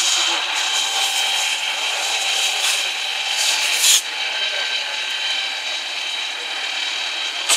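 Steady hiss of a fire hose spraying water onto a burning car, the jet and the steam off the hot car hissing together. The sound drops abruptly about four seconds in.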